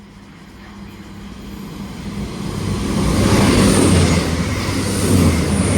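Express passenger train approaching and passing through the station at speed, its rumble and rush of wheels and air growing from faint to loud over the first three seconds and then staying loud.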